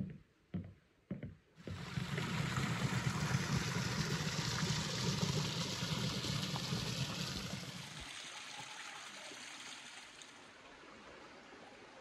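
A few footsteps on a wooden footbridge, then a small spring-fed creek trickling over rocks, starting suddenly about a second and a half in and growing quieter after about eight seconds.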